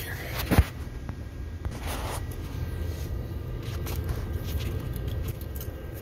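Handling noise from a phone camera being picked up and carried by hand: a sharp knock about half a second in, a brief rustle around two seconds and a few small clicks, over a steady low rumble.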